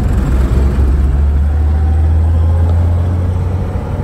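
Old Blue's engine and road noise heard from inside the old vehicle, held in third gear on the start of a steep 6% downhill grade, the engine holding the vehicle back. A loud, steady, deep drone that eases slightly near the end.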